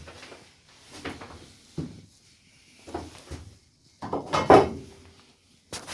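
A handful of separate clunks and scrapes as metal bracket pieces are handled and positioned. The loudest, a longer scraping knock, comes about four and a half seconds in, and a sharp click follows near the end.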